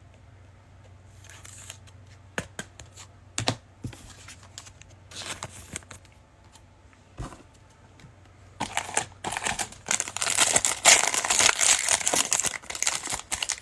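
Trading-card pack wrapper being handled and torn open: scattered light clicks and rustles, then dense crinkling of the foil wrapper from about eight and a half seconds in.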